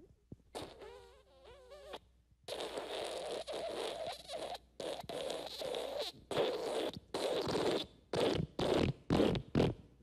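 Fart sound effects: a short fart with a wobbling pitch about half a second in, then a long sputtering fart from about two and a half seconds that breaks into a quick run of short blasts near the end.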